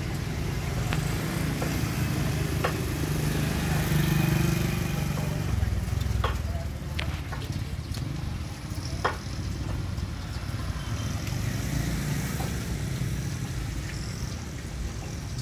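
Steady low rumble of motor traffic, most likely motorcycles, running on the street. It swells about four seconds in, and a few sharp knocks are scattered through it.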